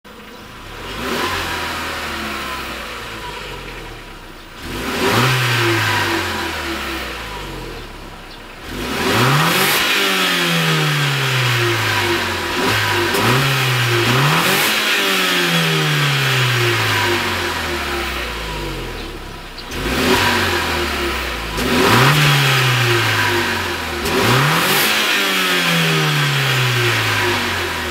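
Renault Mégane Coupé GT TCe 180's 1.6-litre turbocharged four-cylinder petrol engine, heard from outside at the exhaust, revved repeatedly with the car standing still. About eight quick rises in revs, each falling slowly back toward idle.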